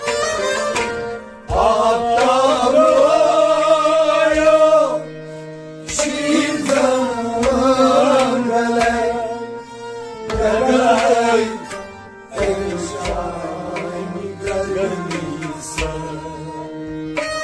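Kashmiri Sufiyana music: men's voices singing a devotional song in long phrases over a harmonium's sustained reeds, a plucked long-necked lute and a drum. The singing breaks off briefly twice, while the harmonium holds on underneath.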